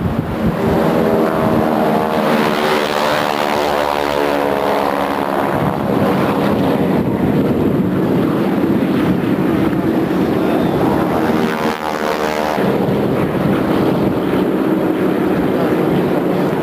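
Several vintage single-engine propeller aircraft running at full power as they take off and fly past low in formation. The loud, steady engine-and-propeller drone carries a strong buzzing engine note that swells twice, in the first few seconds and again around 9 to 12 seconds in.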